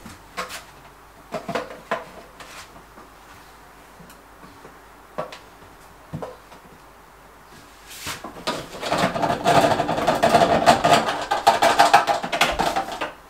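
Scattered clicks and knocks of washing-machine hoses being handled at the wall hookup box, then about four to five seconds of loud, rapid rasping from near the middle to the end as the ribbed plastic drain hose is pulled and dragged out of the drain standpipe.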